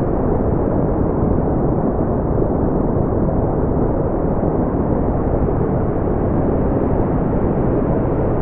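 Brown noise: a steady, even, deep rushing hiss, strongest in the bass and dull in the treble, with no change in level.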